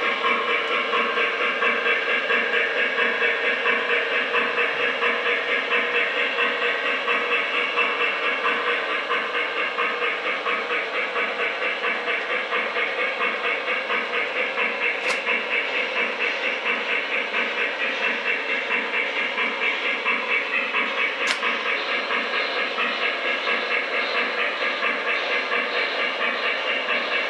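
O gauge model Shay steam locomotive's sound system chuffing in a steady rhythm of about three beats a second as the train runs. Two brief sharp clicks come about halfway and about two-thirds of the way through.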